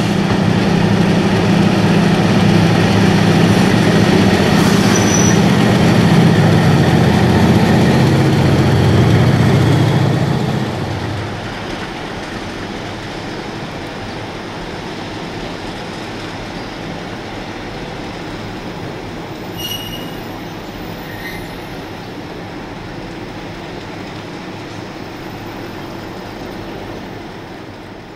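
Two MLW diesel locomotives hauling a freight train. For the first ten seconds or so their engines run loud and steady as they pass close by. After that the sound drops to the quieter, steady rumble of the wagons rolling away, with brief high wheel squeals about five seconds in and again near twenty seconds.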